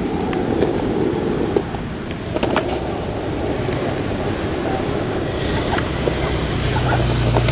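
Skateboard wheels rolling over rough asphalt: a steady gritty rumble with a few sharp clicks in the first few seconds. A low hum and hiss of road traffic grow over the last couple of seconds.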